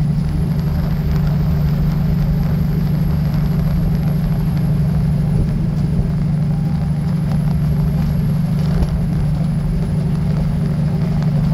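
Kenworth W900 semi truck's diesel engine droning steadily at highway cruising speed, heard from inside the cab, with a thin high whine running above it.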